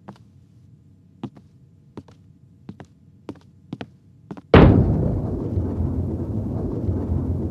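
About eight light, sharp taps at uneven spacing, then a sudden loud boom that trails off into a long low rumble.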